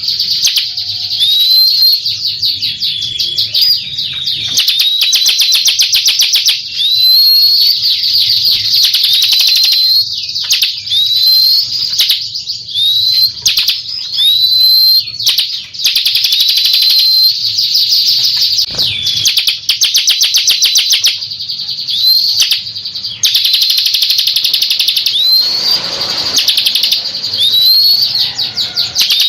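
Bar-winged prinia (ciblek) singing without pause: long rapid trills of fast repeated notes, broken every second or two by short rising notes.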